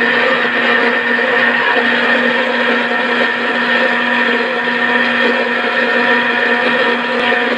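Electric mixer-grinder running steadily at speed, its blades wet-grinding green chutney of basil, mint, coriander and green chillies with a little water into a smooth paste: a steady, even motor whine.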